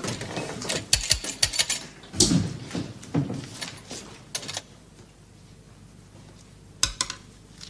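A man speaking German, then a pencil writing on a small notepad, with a few sharp clicks near the end.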